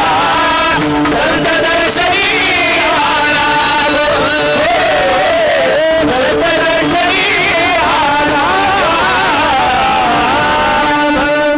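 Kirtan chorus of men singing a devotional melody in unison, with held accompanying notes beneath and small hand cymbals keeping time.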